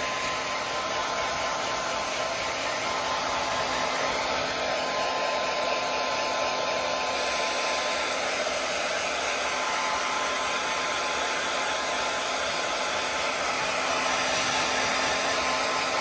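Hand-held hair dryer running steadily, a constant rush of blown air with a faint high whine.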